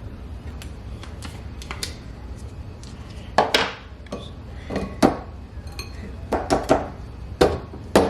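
Utensil clinking and scraping against a dish while thick blended acai is scooped out: a run of sharp, irregular knocks over a low steady hum.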